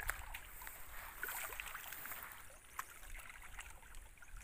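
Hands sloshing and groping through shallow muddy pond water to feel for fish, with small, scattered splashes and drips.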